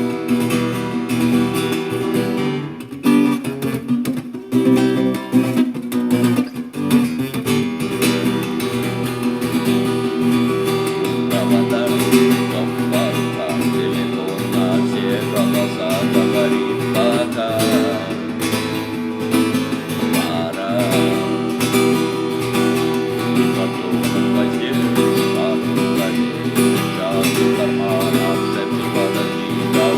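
Music led by acoustic guitar, strummed and plucked, with a voice singing over it from about eleven seconds in.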